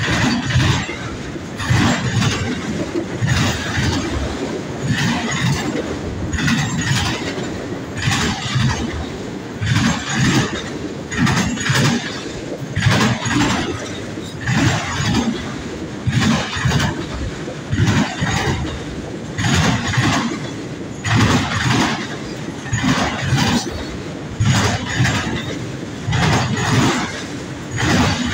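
Freight train rolling past, its car wheels clacking over rail joints in a steady rhythm of sharp knocks about once a second, over a continuous rumble.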